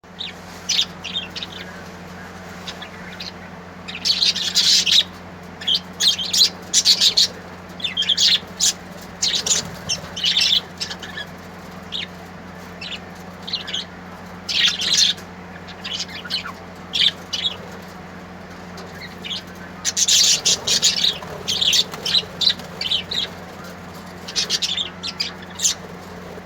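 Small birds chirping and calling in short irregular bursts and quick runs of high notes, over a faint steady low hum.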